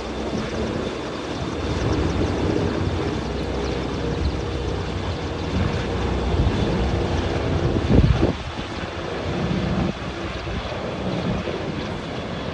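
Large helicopter flying away over the sea, a steady drone of rotor and turbine engines mixed with wind on the microphone. About eight seconds in there is one loud thump of wind hitting the microphone.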